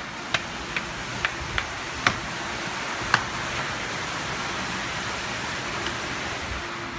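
Steady rushing hiss that swells slightly partway through. Over it come a few sharp footstep-like taps on hard paving in the first few seconds.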